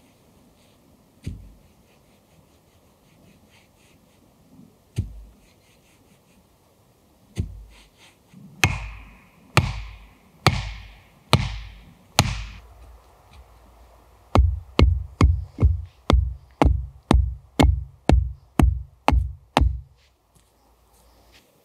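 The back of an axe pounding a wooden stake into the forest floor. A few scattered knocks come first, then five heavy blows about a second apart, then a quick run of about a dozen duller, lower thuds, two a second, that stop shortly before the end.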